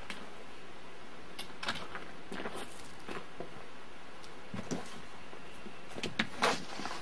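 Scattered light wooden knocks and clatters from boards and tools being handled, loudest in a cluster near the end, over a steady hiss of old video tape.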